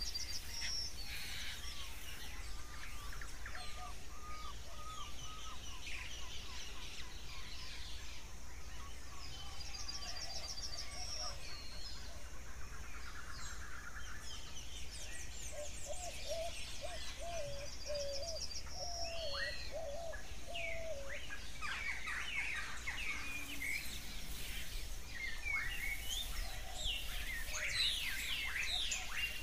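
Birdsong ambience: several birds singing and chirping, with high rapid trills repeating now and then and a warbling phrase partway through. The calls grow busier near the end, over a steady faint hiss and low hum.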